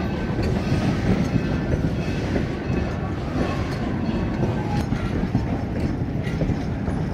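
Passenger coaches of the Durango & Silverton narrow-gauge railroad rolling past close by: a steady rumble of steel wheels on rail, with the clickety-clack of wheels crossing rail joints.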